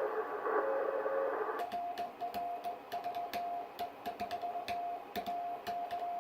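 Ham radio transceiver: first a band of receiver hiss with faint Morse code tones. About one and a half seconds in the hiss cuts out, and a single steady Morse code tone keys on and off in dits and dahs, with sharp clicks from the key as the operator sends CW.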